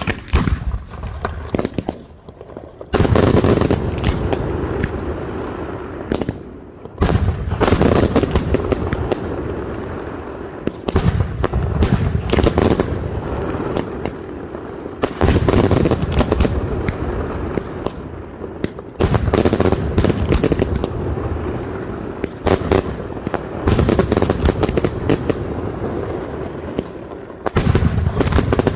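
Aerial fireworks bursting in volleys of rapid bangs and crackles. A new volley starts about every four seconds, and each one trails off into an echoing rumble.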